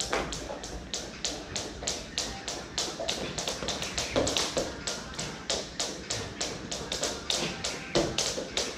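Skipping rope slapping the gym floor in a fast, even rhythm, about four to five ticks a second.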